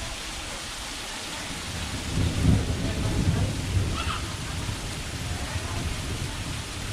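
Steady rain falling, with a low rumble of thunder that swells about two seconds in and rolls on.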